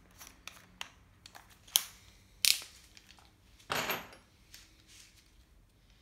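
Handling noises: a few sharp clicks, two of them loud about two seconds in, and a short rattle as a long wood screw is picked up and set onto a cordless drill's driver bit. The drill is not running.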